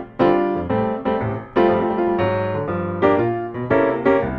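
Background music: piano playing a lively tune of struck notes and chords in quick succession.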